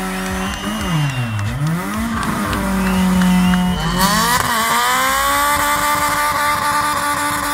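A car engine held at high revs during a burnout, with its tyres squealing. About a second in the revs dip and climb back; about four seconds in the sound changes abruptly, then the revs climb again and hold high.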